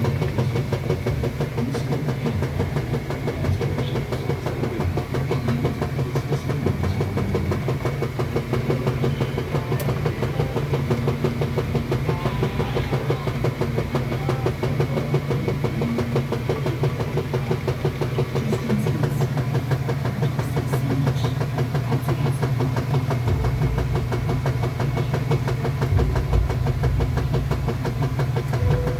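Kenmore washing machine running: a steady, unbroken motor hum with a fine rapid rattle over it.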